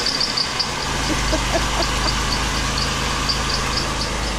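Ford Taurus engine idling with a light, regular knock of about four to five ticks a second, and a deeper hum that sets in about a second in. The knock is taken for bad bearings in the bottom end.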